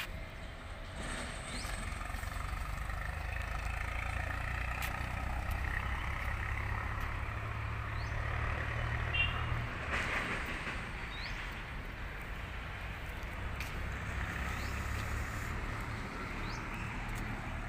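Outdoor background: a steady low rumble with a few short faint chirps and occasional clicks.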